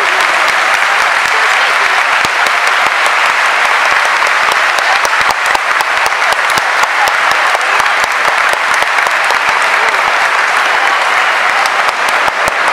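Large stadium crowd applauding, thousands of hands clapping at once in a steady, loud wash.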